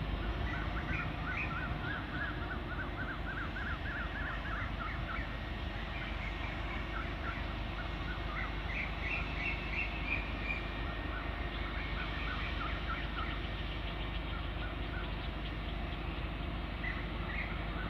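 Small birds chirping in quick clusters of short, high notes over a steady low rumble from a distant diesel train approaching.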